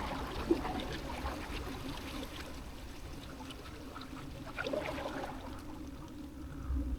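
Faint water trickling and lapping, with a few light clicks and taps, one sharper tick about half a second in.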